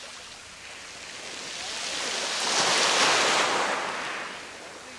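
Southern right whale surfacing next to a boat: a whooshing rush of water that swells to a peak about three seconds in and then fades.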